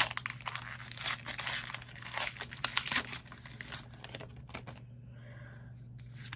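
Foil wrapper of a Pokémon TCG Scarlet & Violet booster pack crinkling and tearing as the pack is opened: dense crackling for about three seconds, then a few scattered crinkles before it goes quiet.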